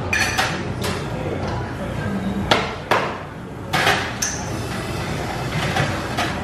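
Sharp metal knocks and clanks of an espresso machine's portafilter being handled and knocked out, the loudest two close together near the middle, over steady café background noise.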